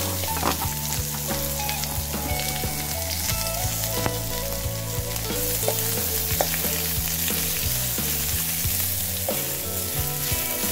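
Chopped onion, ginger and garlic sizzling in hot oil in a metal wok, stirred with a wooden spatula that scrapes and clicks against the pan.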